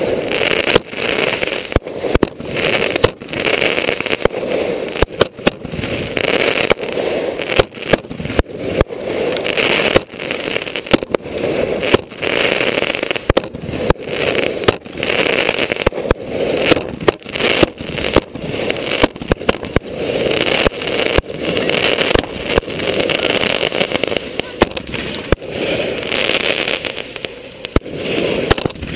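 Consumer fireworks firing a dense barrage from the launch board close by: a rapid, unbroken run of sharp launch bangs and aerial bursts, with crackling and hiss between them.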